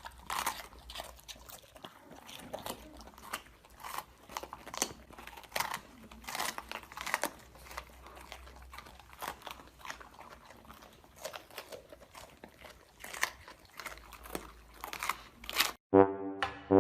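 Irregular crisp crunching, like an animal chewing something crunchy, a few crunches a second. Music with steady pitched notes starts near the end.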